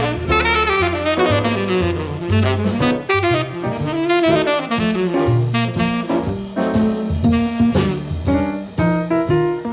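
Background jazz music: a saxophone plays the melody over bass notes and a drum kit.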